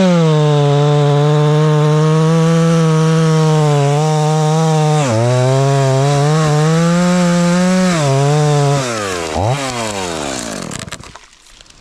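Stihl chainsaw cutting through a thanni tree trunk at full throttle, its engine note held steady under load and dipping briefly about five seconds in. Near the nine-second mark the throttle is released: the engine drops with a quick blip and dies away.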